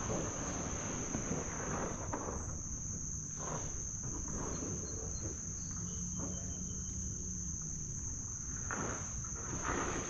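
Insects trilling in one steady high unbroken note over a low rush of background noise, with a few faint brief sounds in the middle and near the end.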